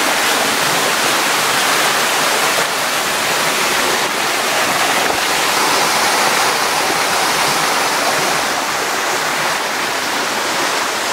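Small waterfalls pouring down a rock wall into a shallow pool, making a steady, unbroken rush of falling and splashing water. It grows slightly softer near the end.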